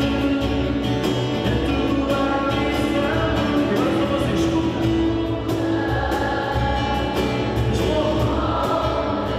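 Live Christian worship song: several voices singing together over keyboard and strummed acoustic guitars, with a light steady beat.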